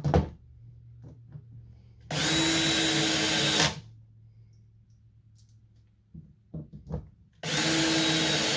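Cordless drill driving screws: two steady whining runs of about a second and a half each, a few seconds apart. A sharp knock comes right at the start, and light clicks and taps come between the runs.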